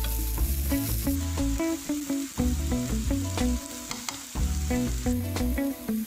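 Chopped onions and tomatoes sizzling in a frying pan while a wooden spatula stirs and scrapes them around, with frequent short scraping taps against the pan.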